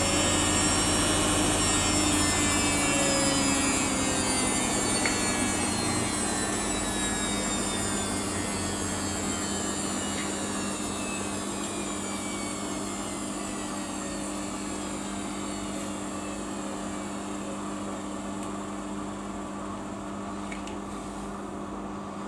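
Samsung washing machine drum coasting down after its final spin, the motor whine falling steadily in pitch and growing quieter, over a steady hum.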